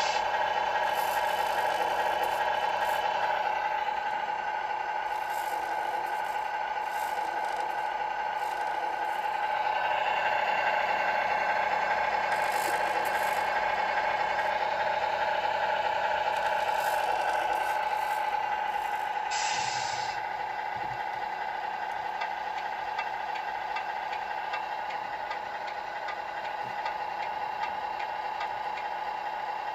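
Tamiya MFC-01 sound unit in a 1/14-scale Scania R620 model truck playing a simulated diesel truck engine through its small speaker. The engine runs steadily, grows louder for several seconds around the middle, then settles back to a quieter idle. A short air-brake-like hiss comes about two-thirds of the way through.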